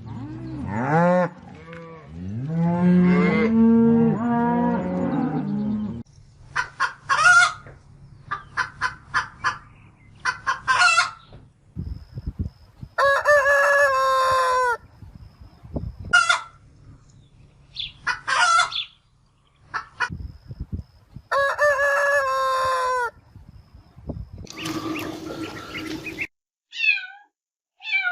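A cow mooing for the first few seconds, followed by chickens clucking and a rooster crowing twice, each crow about two seconds long. Short, high, falling calls start near the end.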